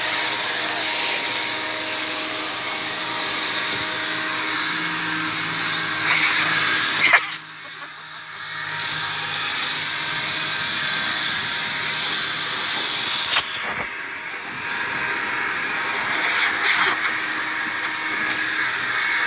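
Handheld leaf blower running steadily with a high fan whine. The sound drops off sharply about seven seconds in and picks back up about a second later.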